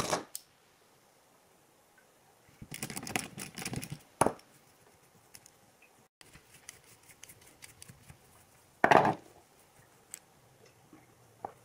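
Small metal parts of a motorcycle's Brembo front brake master cylinder and lever clicking and rattling as they are handled and taken apart. There is a run of quick clicks about three seconds in, a sharp click just after, and a louder short rattle about nine seconds in.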